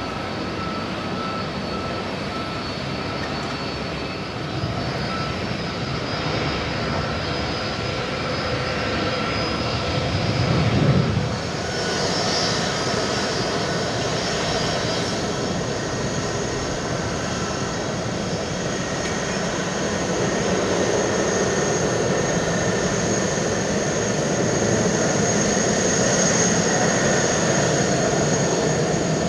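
Jet airliner engines running at taxi power: a steady hum with high whining tones, first from a Boeing 777-300ER's GE90-115B engines, then from a taxiing twin-engine airliner. About a third of the way in there is a brief louder swell, and after it the whine tones change.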